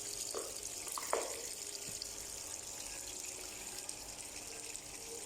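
Toshiba washing machine filling with water: a steady rush of water running into the drum.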